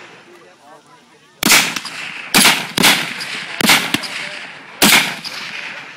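Five rifle shots from a firing line of scoped M14 rifles in 7.62×51 mm NATO, irregularly spaced, each a sharp crack that trails off in an echo. The first comes about a second and a half in, two more follow close together, then one near the middle and a last one near the end.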